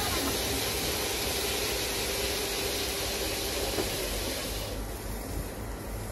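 Christ Genius Vitesse C160 rollover car wash spraying: a loud, steady hiss of water jets over the machine's low hum. The hiss falls away about three-quarters of the way through, leaving the low hum.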